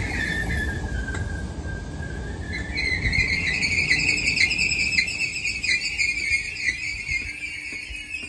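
Merseyrail Class 507 electric train braking to a stop at a platform. A high-pitched squeal dips slightly in pitch, then rises and holds, over a low rumble that fades as the train slows. A few sharp clicks come in the second half.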